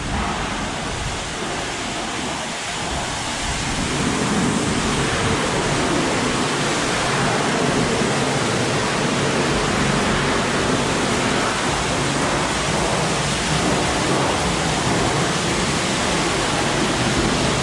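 Steady hiss of a high-pressure water spray washing down a truck, growing louder about four seconds in.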